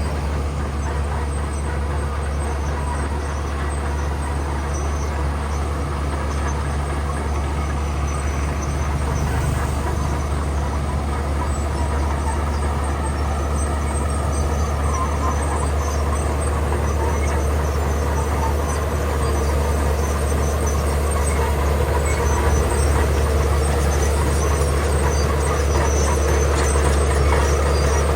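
Komatsu bulldozer's diesel engine running steadily under load while pushing gravel, a little louder in the last third.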